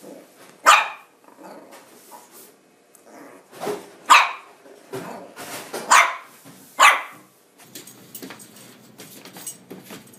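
Small puppy barking in five short, high, sharp yaps spread over about seven seconds, each dropping in pitch.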